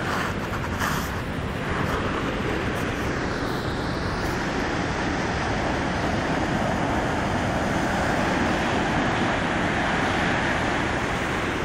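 Steady roar of ocean surf breaking on a rocky shore.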